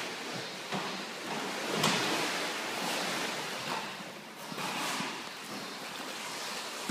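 A horse swimming in an equine pool, the water splashing and churning around it, with a louder surge of splashing about two seconds in.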